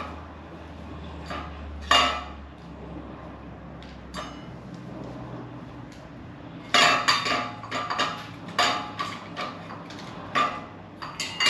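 Small metal hardware being handled: a couple of separate clinks, then a quick run of clinks and rattles from about seven seconds in, over a faint low hum.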